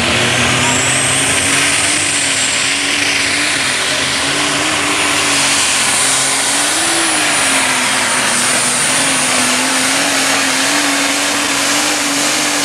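Modified pulling tractor's engine running flat out as it drags the sled down the track: a loud, steady engine sound with a high whine that climbs in the first second and then holds.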